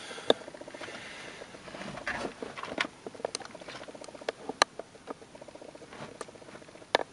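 Scattered light clicks and taps from a laptop being handled and turned around on a bench.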